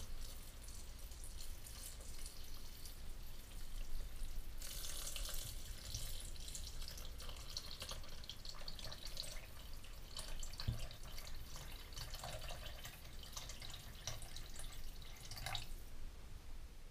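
Broth pouring in a stream into a blender jar onto chopped vegetables: a steady splashing trickle that gets fuller about four seconds in and tails off near the end.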